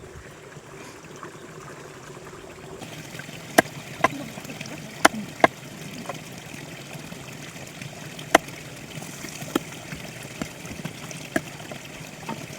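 Stream water trickling and running steadily, with a handful of sharp clicks now and then, two of them in quick pairs.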